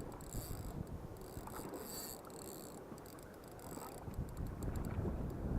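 Spinning reel whirring in spells as line is cranked in on a hooked squid, over low wind and water rumble on the boat. The rumble grows louder near the end.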